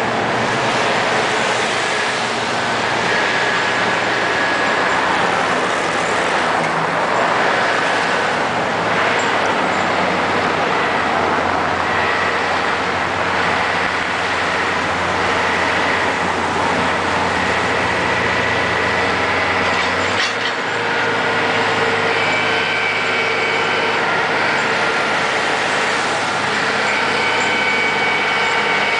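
Heavy diesel engines of a road grader and front loader running as they work along the road clearing snow, the low engine note changing about twenty seconds in, with a high steady whine over it.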